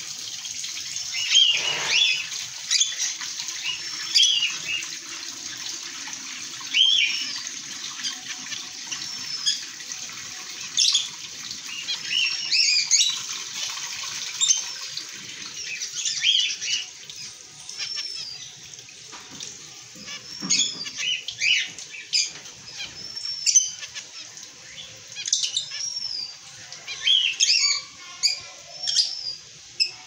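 Caged zebra finches calling: short, high, chirping notes, often one or two a second, keep coming from several birds.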